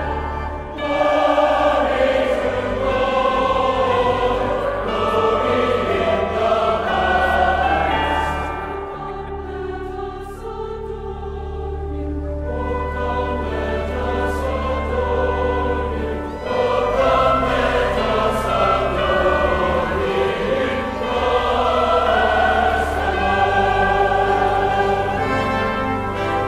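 Choral music: a choir singing long, sustained notes over orchestral accompaniment, growing softer in the middle and swelling again.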